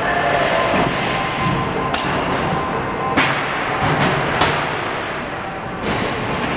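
Steady machinery noise of a warehouse conveyor and turntable system, broken by four sharp knocks as a wheeled cage cart is pushed across the turntable and over the roller conveyor edges.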